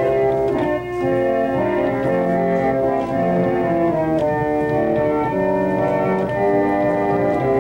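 Pump organ (foot-pumped reed organ) playing a tune in sustained chords, the notes changing every half second or so.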